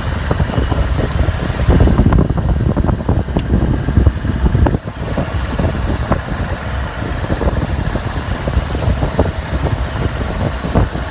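Loud, uneven low rumble of a moving vehicle's ride noise, with irregular knocks and jolts throughout.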